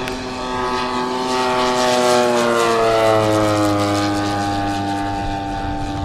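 Propeller-driven RC scale model of a Morane-Saulnier D-3801 fighter flying past. It gives a steady tone that drops in pitch about two to three seconds in as it goes by, loudest around that moment.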